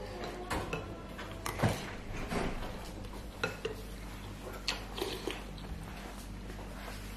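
A fork and spoon clink and scrape against a ceramic bowl, giving several sharp clicks, while flat rice noodles (kwetiau) are slurped and chewed in between.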